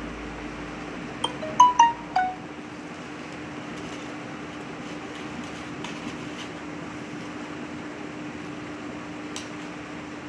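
A steady mechanical hum with one low drone throughout. About a second in comes a quick run of five short chiming notes, the loudest sound here. A few faint clicks follow, from the paper box pieces being handled.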